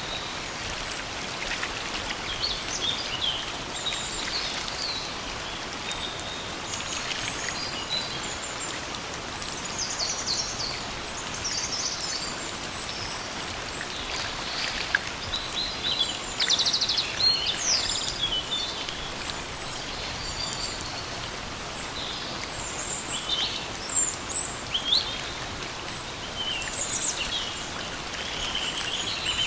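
Steady rain falling in a forest, with many birds chirping and calling over it in short high notes; the bird calls come louder in clusters about halfway through and again about three-quarters of the way through.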